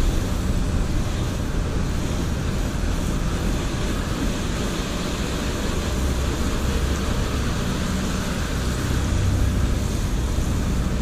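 Water spraying steadily from a hose onto a car's painted panels, rinsing off shampoo suds.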